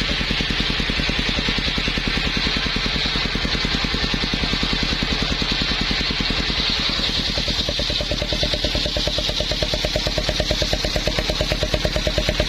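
Engine of a circular saw machine running steadily with an even, rapid pulse. About seven and a half seconds in the tone shifts, and a pulsing mid-pitched note comes in.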